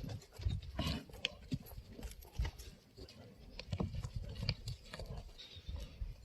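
Yak horns knocking together in a fight: irregular sharp clicks and knocks with dull low thuds between them.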